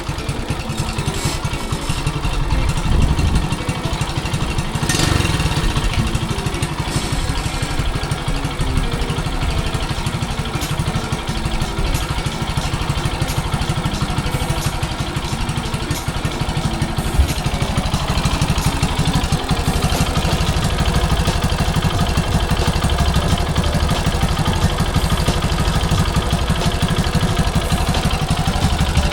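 Honda Super Cub's air-cooled single-cylinder four-stroke engine running steadily, its firing pulses a rapid even beat.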